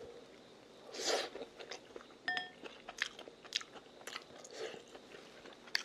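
Close-up eating sounds of a man eating stir-fried udon noodles with chopsticks: quiet chewing, with a louder noisy mouthful about a second in and a few light clicks and ticks scattered through.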